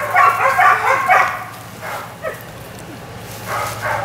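Weimaraner puppies yipping and barking in quick high bursts, most densely in the first second or so, with a short whining yip about two seconds in and more yips near the end.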